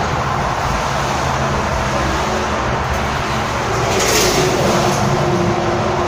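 Steady rumble of road traffic, with a brighter hiss swelling briefly about four seconds in, like a vehicle going past.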